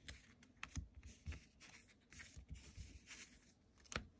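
Faint taps and slides of trading cards being set down on a playmat and gathered into a stack, with one sharper tap near the end.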